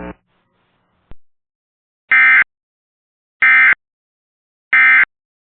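Three short, loud buzzing data bursts about a second apart: the SAME digital end-of-message code of a NOAA Weather Radio alert, marking the end of the tornado warning broadcast. A faint click comes just before them.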